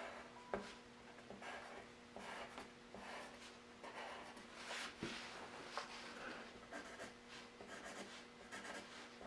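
Graphite pencil scratching on drawing paper in a series of short strokes, with a sharp tap about half a second in.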